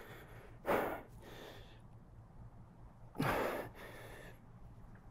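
A man breathing hard from the exertion of pull-ups: two sharp, forceful breaths about two and a half seconds apart, each followed by a softer one.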